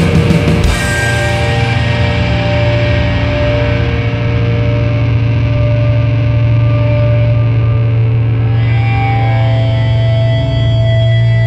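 Sludge/doom metal: heavily distorted electric guitar and bass holding a sustained low drone with steady ringing tones once the drums stop, within the first second. The held notes change about three-quarters of the way through.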